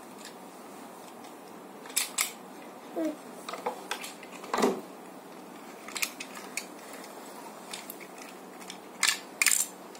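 Hard plastic parts of a Tobot Magma 6 toy robot clicking as they are handled and fitted together: scattered sharp clicks, a pair about two seconds in and another pair near the end.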